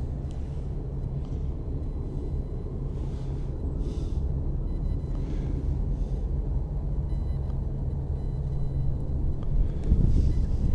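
Steady low rumble of road traffic, swelling briefly near the end.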